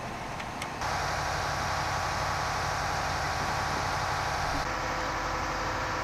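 An engine running steadily: a constant whine over a low hum. It cuts in abruptly about a second in, and its tone shifts about two-thirds of the way through.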